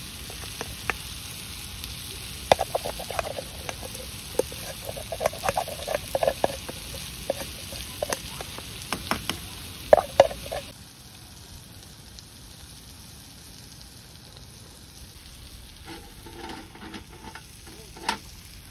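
Food sizzling in a pan, with utensils stirring and clattering against it. The sizzle cuts off suddenly about ten seconds in, leaving a few light clinks.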